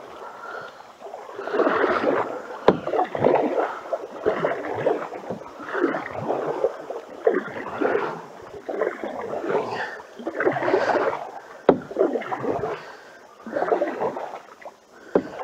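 Canoe paddles pulling through creek water in repeated strokes, about one a second, each stroke a swell of splashing and swishing water. A few sharp knocks are heard among the strokes.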